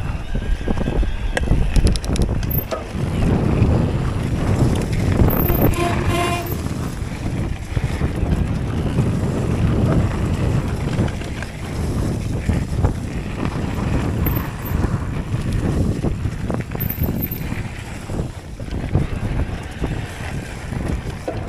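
Wind buffeting an action camera's microphone over the rumble and rattle of a Focus Jam2 e-mountain bike rolling over a dirt forest trail, with a brief squeal about six seconds in.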